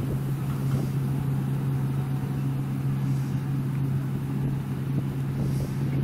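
Deutz-Fahr Topliner 4065 HTS combine harvester running steadily while cutting spring barley: an even drone with one strong low hum.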